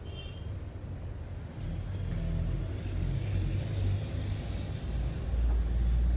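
Low rumble that grows louder about two seconds in and is loudest near the end.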